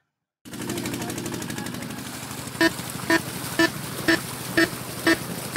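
Jet ski engine running steadily on the water, starting after half a second of silence. From about halfway, a short pitched beat repeats about twice a second: background music coming in over the engine.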